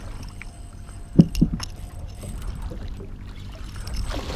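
Water sloshing around a small boat, with two short knocks just over a second in.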